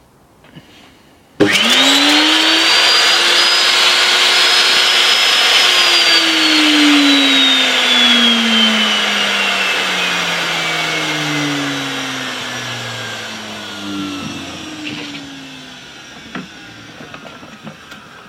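Makita router motor switched on about a second and a half in, whining up to full speed almost at once, running free for about four seconds, then switched off and spinning down with a slowly falling whine that fades over about ten seconds. A few small clicks near the end.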